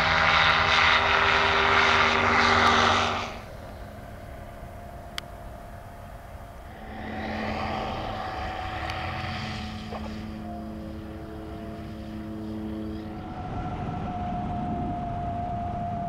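Evolution Revolt ultralight trike's engine and propeller droning in flight: loud for the first three seconds, then dropping away abruptly to a fainter, steadier hum that swells again about seven seconds in.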